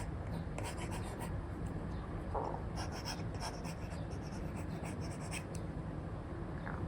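Apple Pencil 2 tip with an Elecom nib sketching on an iPad screen covered with a paper-like film: short scratchy strokes, many in quick irregular succession, over a steady low hum.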